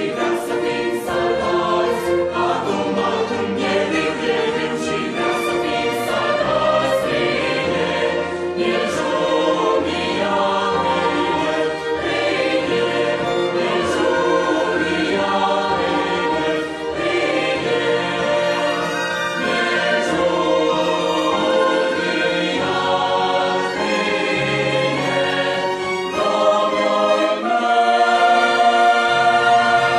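Mixed choir singing in parts, accompanied by a small string ensemble. Near the end the choir swells into a louder, held chord.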